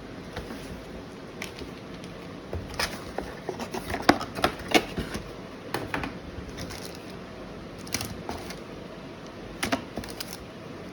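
Irregular sharp clicks and light plastic-and-metal taps from computer parts being handled, in clusters over a steady low background hiss.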